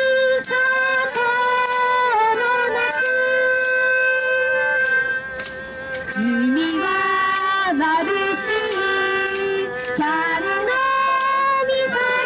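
A choir singing a song with long held notes and a few gliding changes of pitch, over a regular light beat.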